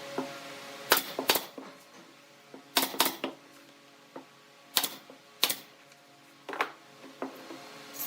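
A series of sharp knocks and clicks, irregularly spaced and some in quick pairs, over a faint steady hum.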